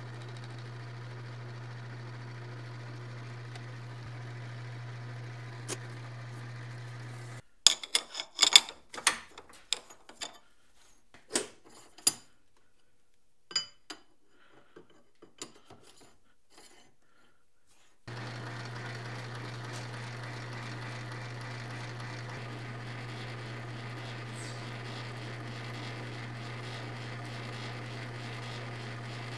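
Metal lathe running steadily with a low hum while turning a copper rod. Partway through the running breaks off, and a scatter of sharp metal clinks follows as the copper rod is handled and set in the collet chuck; then the lathe runs steadily again.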